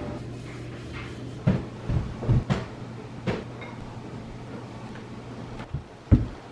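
Knocks and thumps of household things being handled and put down: a cluster between about one and a half and three seconds in, and two more near the end, over a low steady hum.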